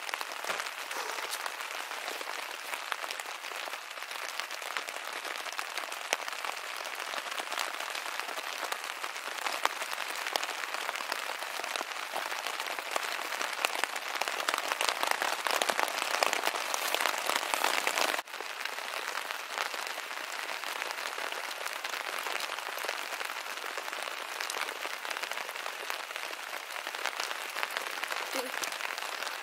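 Rain falling: a dense, even patter of countless drops that swells in the middle and drops back suddenly about two-thirds of the way through, then stays steady.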